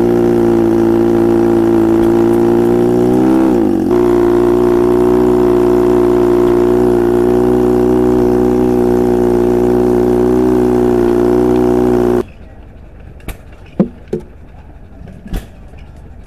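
Pacific pumper portable fire pump, its power head a two-cylinder, two-stroke 5 hp Johnson outboard motor, running steadily while pumping water through a hose. Its pitch dips briefly and comes back about three and a half seconds in. After about twelve seconds the engine sound cuts off suddenly, leaving a quiet background with a few sharp knocks.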